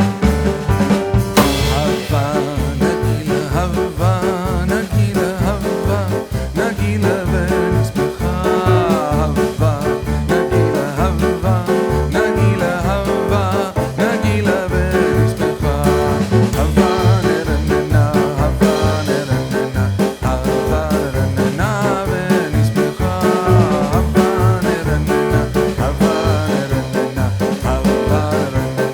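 Background music with a steady beat and a singing voice over it.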